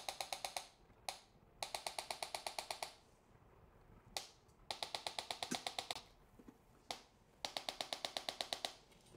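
Handheld electromechanical impulse adjusting instrument firing against the neck: repeated trains of rapid clicks, about ten a second for a little over a second each, every few seconds, with a single click just before each new train. Each click is a thrust delivered at a set velocity and frequency to the cervical facet joints, meant to produce the effect of a manipulation without moving the joint.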